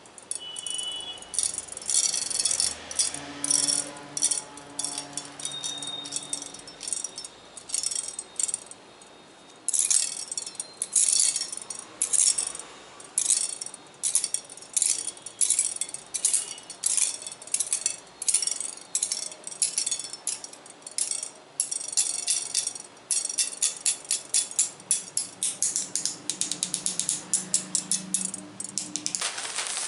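Close-miked tapping and clicking on assorted small hard objects, in quick irregular runs of sharp rattly taps, with a brief quieter pause about a third of the way in and a faster run of clicks near the end.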